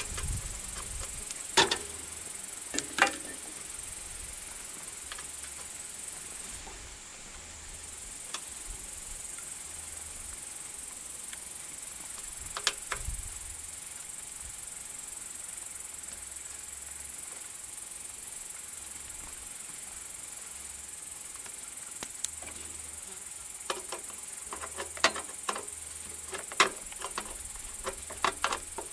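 Scattered sharp clicks and light taps of hands and a tool working on the engine parts around the dipstick tube and starter, a few early on and a quick run of them near the end, over a steady high hiss.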